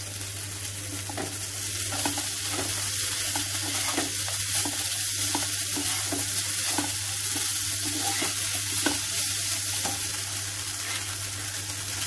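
Poha sizzling in a hot frying pan with potato, onion and peanuts while it is stirred with a perforated steel skimmer spoon, which scrapes and taps against the pan every half second or so.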